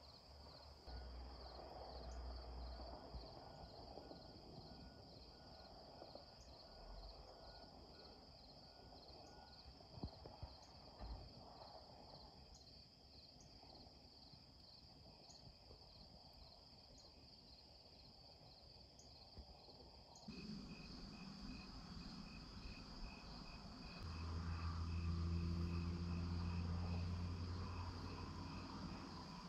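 Insects chirping in a steady chorus with a fast, even pulse; about two-thirds of the way through the chirping shifts to a lower pitch. Near the end a louder, low steady hum swells for about four seconds and fades.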